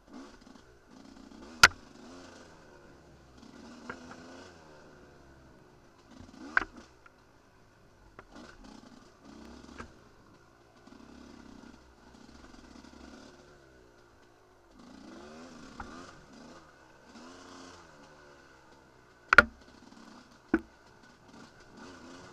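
Enduro dirt bike engine revving up and down as the bike is ridden over rough ground, with several sharp knocks; the loudest come about two seconds in and near the end.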